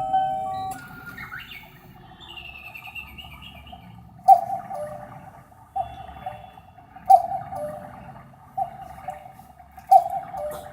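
Digital cuckoo clock's electronic chime: a short melody ends, a brief bird-like chirp follows, then a cuckoo call repeats about every second and a half. The repeated cuckoos are the clock counting out the hour.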